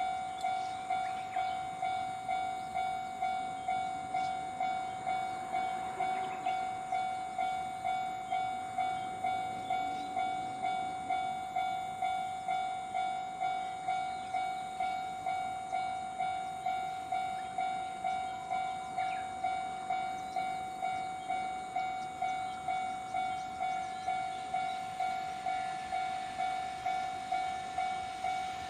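Railway level-crossing warning bell ringing steadily, a single pitched electronic 'kan-kan' at about two strikes a second. It signals an approaching train.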